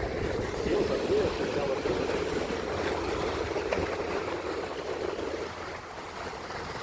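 Ocean surf washing ashore, with wind on the microphone.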